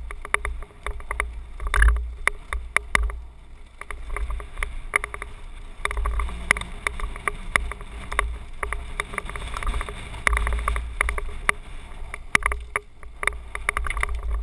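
Mountain bike riding down a rocky dirt trail, heard from a helmet camera: a fluctuating low rumble of wind on the microphone, with constant irregular clattering and rattling of the bike over loose stones.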